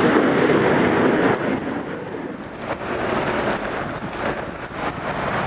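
Jet roar of a departing McDonnell Douglas MD-80-series airliner climbing out on its Pratt & Whitney JT8D turbofans, which breaks off abruptly about a second in. A quieter, steady rushing noise follows, with wind buffeting the microphone.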